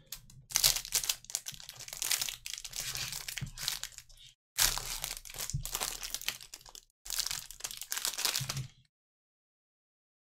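Clear plastic wrapper crinkling as gloved hands slide trading cards out of it, in three stretches of crackly rustling.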